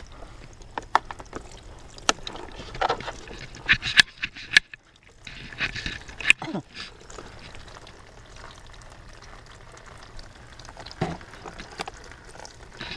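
Water trickling from drip feeder lines into the plastic stacking planter pots of a pump-fed hydroponic tower, with scattered clicks and knocks from the pots being handled.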